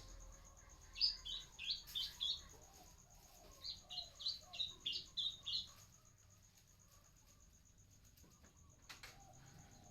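Songbird singing two short runs of quick, high chirping notes, one about a second in and a longer one around the middle, over a faint steady high-pitched tone.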